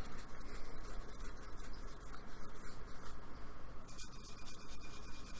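Paintbrush scrubbing acrylic paint onto paper in quick, repeated strokes, a continuous scratchy brushing.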